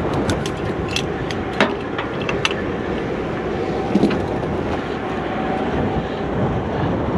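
Sharp metallic clicks and clinks of ratchet-strap hardware being handled on a wooden trailer deck, several in the first two and a half seconds and a single knock about four seconds in, over a steady engine rumble.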